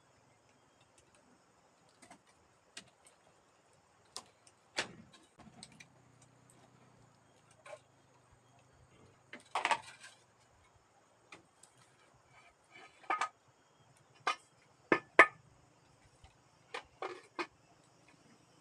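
Irregular light clicks and knocks of tableware being handled during a meal, with a quick cluster about ten seconds in and the sharpest knocks around fifteen seconds in.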